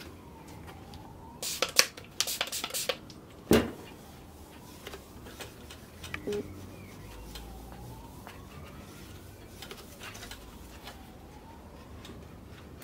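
Clicks and rattles of a Ricoh copier fuser unit's metal frame and small parts being handled on a workbench, then one louder knock about three and a half seconds in and a soft tap later.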